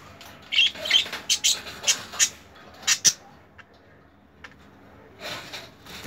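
Budgerigar chirping: a quick run of short, sharp, high-pitched chirps in the first half, then a few more near the end.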